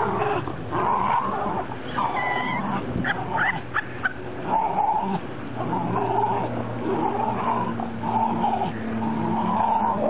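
Dogs growling as they play tug-of-war over a plush toy, in a run of rough growls about one a second.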